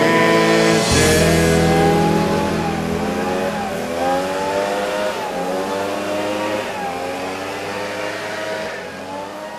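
Petrol leaf blower engine running, its pitch rising and falling as the throttle is worked, gradually getting quieter, with background music faintly underneath.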